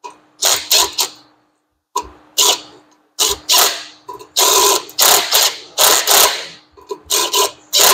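Cordless drill-driver run in repeated short trigger bursts, driving a bolt into the clutch flywheel of a 1925 Maxwell, with a ratcheting, clattering sound on each burst.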